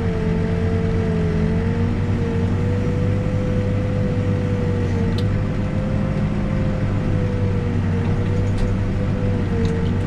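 New Holland backhoe loader's diesel engine running steadily under load with a steady whine over it while the boom swings, heard from inside the cab. There is a single light click about five seconds in.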